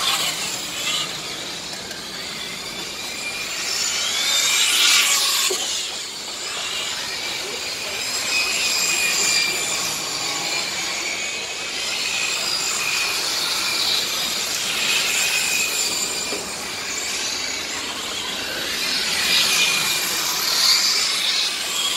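Radio-controlled model racing trucks and cars running laps on an asphalt track, their motors and drivetrains whining high, the pitch rising and falling as they speed up and slow down. The loudest passes come about five seconds in and near the end.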